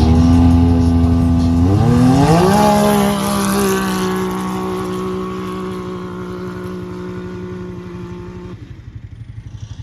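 ATV engine revving up about two seconds in, then held at steady high revs while it fades gradually, cutting off near the end.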